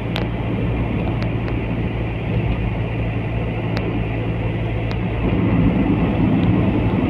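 Wind noise rushing through a moving car's cabin over the car's steady low drone, growing a little louder about five seconds in.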